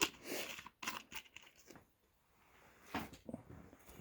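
Paper towel rustling and crinkling as it is handled, in short bursts through the first second and a half and again about three seconds in.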